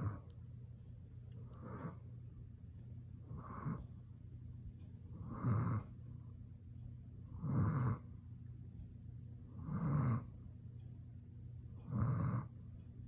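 Steady rhythmic snoring of a sleeper, one snore about every two seconds. The first few are faint, and from about five seconds in each snore is louder and longer.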